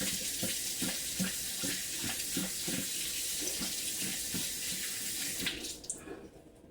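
Water running steadily from a tap into a sink, then shutting off about six seconds in.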